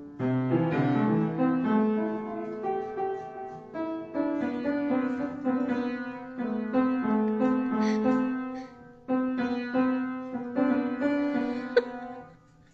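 Piano playing a flowing melody over sustained chords, in phrases with brief pauses, fading out near the end.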